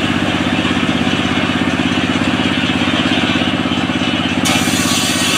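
Jeep engine driving a circular saw bench, running steadily with an even pulse. About four and a half seconds in, a higher hiss joins it as the blade cuts into sengon wood.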